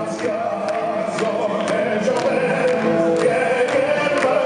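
Music with a choir singing over a steady beat of about two strikes a second.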